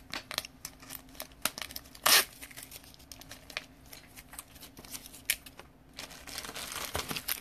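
Trading cards and a clear hard plastic card case handled by hand: scattered small clicks and rustling, with one louder rustle about two seconds in.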